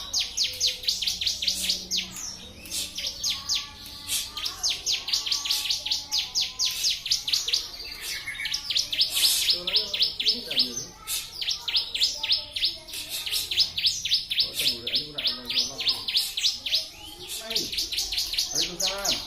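A ciblek (bar-winged prinia) singing its rapid 'tembakan' song: long trains of sharp, high, downslurred notes at about seven a second, broken by short pauses.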